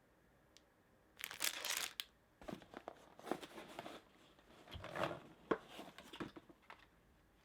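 A small packaging wrapper being torn open and crinkled by hand, in a series of rustling, crackling bursts starting about a second in.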